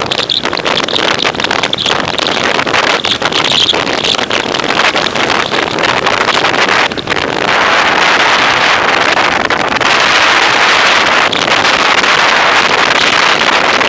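Wind buffeting the microphone of a camera mounted on a moving bicycle, a steady loud rushing that swells about seven and a half seconds in as speed picks up.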